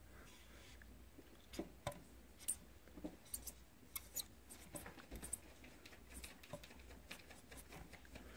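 Black marker tip writing on a laptop processor chip: a faint, quick, irregular series of small taps and squeaks as the letters and numbers are drawn, starting about a second and a half in.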